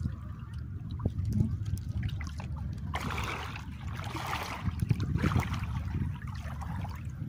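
Shallow water sloshing and splashing as someone wades through it, in bouts of a second or so from about three seconds in, over a low steady rumble.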